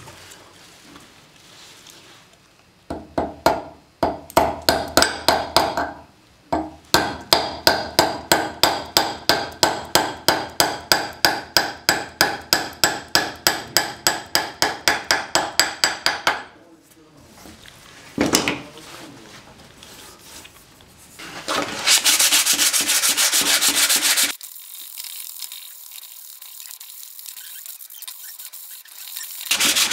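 A steel wedge is hammered into the end of a new wooden handle fitted to a hammer head clamped in a vise: a few single blows, then a long run of rapid taps, about four a second, with the steel head ringing. Later come a few seconds of sanding on the wooden handle.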